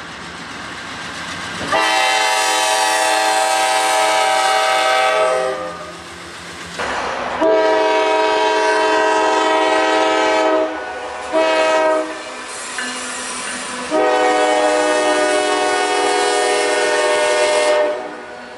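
Nathan Airchime K5LA five-chime locomotive horn sounding the grade-crossing signal: two long blasts, one short, then a final long blast, each a loud multi-note chord.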